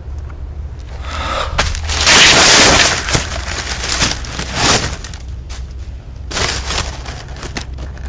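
Handheld camera being jostled and tumbling onto dry leaf litter: loud rustling and crackling with knocks against the microphone over a low handling rumble, the loudest burst about two seconds in and lasting about a second.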